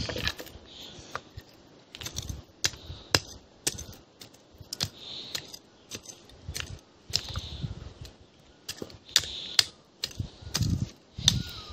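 A small hand digging tool chopping and scraping into stony soil: irregular sharp strikes, roughly one or two a second, with clinks against stones and a few duller thuds.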